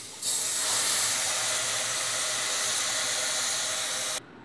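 Coconut milk poured into a pressure cooker of hot rice fried in masala, sizzling loudly in a steady hiss of steam that starts just after the pour begins and stops abruptly just before the end.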